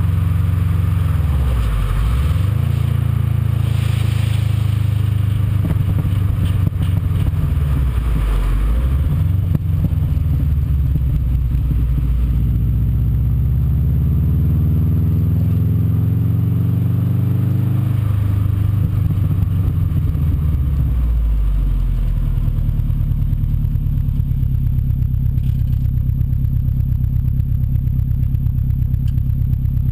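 Subaru Liberty RS's turbocharged EJ20 flat-four engine heard at the tailpipe of its 3-inch Hi-Tech exhaust while driving. The note drops and climbs back twice, rises steadily under acceleration, then falls away and settles to an evenly pulsing idle for the last eight or so seconds.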